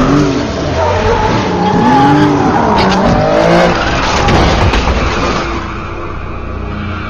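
Car engines revving hard in quick rising and falling swoops, with tyres skidding and squealing, as mixed for a film car chase. The sound eases off somewhat near the end.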